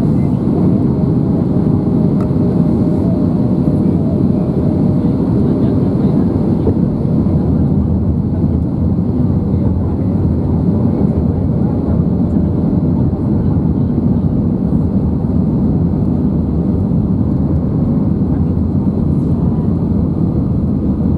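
Airbus A320neo cabin noise during descent on approach: a low, even, steady rush of airflow and engine noise heard inside the cabin over the wing, with the flaps extended.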